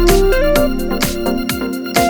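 Background electronic music: a keyboard melody over a steady beat.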